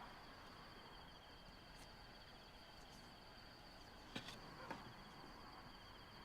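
Faint ambient chirring of insects: a steady, finely pulsing high trill, with a couple of soft clicks about four seconds in.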